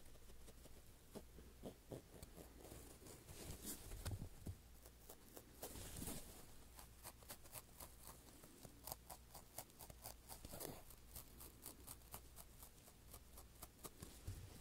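Faint scratching and handling of foam blocks: a string of small, quick ticks and scrapes, thickest about nine to eleven seconds in.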